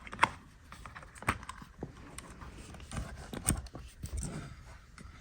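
Scattered light clicks, taps and scrapes of a small box being handled and opened by hand.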